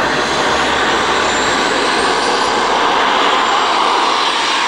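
Miniature turbine engine of a BVM BobCat RC jet running as the jet taxis on the runway. It makes a loud, steady rushing hiss with a faint high whine that glides in pitch.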